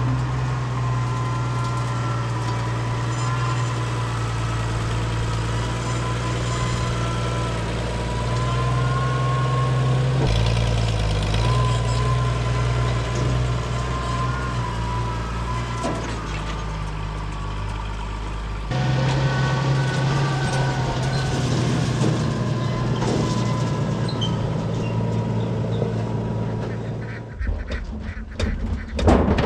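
A corn elevator conveyor and the engine driving it running steadily, with a wavering high squeal over the engine's low drone. The sound shifts abruptly three times, about ten, nineteen and twenty-seven seconds in.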